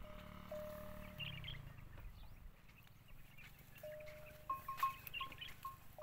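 Dromedary camels browsing on a thorny tree, a neck bell ringing in short scattered clinks that gather towards the end, among light clicks and a sharp knock about five seconds in. A low rumble fades out in the first second or so.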